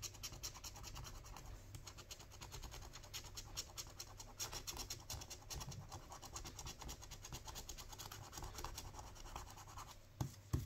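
Rapid, repeated scratching strokes scraping the silver coating off an Irish National Lottery scratch card. A couple of soft knocks come near the end.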